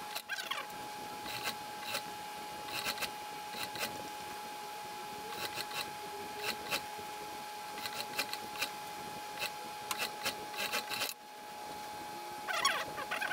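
Industrial sewing machine with a steady high hum, with irregular short clicks and small clusters of clicks as a suit jacket's lining is worked under the presser foot. A louder burst of clicks comes near the end.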